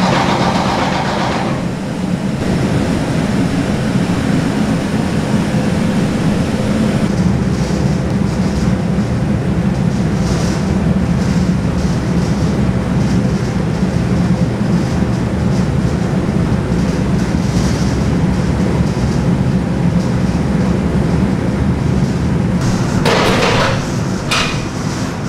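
Steady drone of factory machinery, loud and unbroken, with a brief brighter noise near the end.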